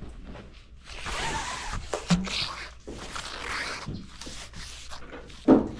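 Magnet-fishing rope being handled and paid out through gloved hands as the magnet goes back into the water, a scraping, rustling handling noise close to the microphone in several stretches. A short loud thump comes near the end.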